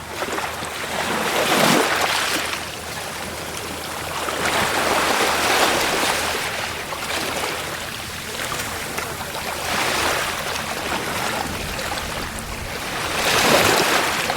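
Waves breaking and washing up a beach: about four swells of surf, each rising and falling away over a few seconds.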